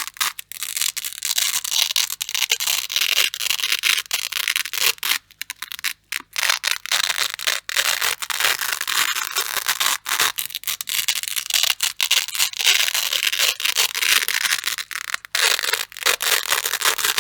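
Grey hook-and-loop velcro being pulled apart: long, dense crunchy tearing strips, one after another, with brief pauses between pulls, the longest about five seconds in.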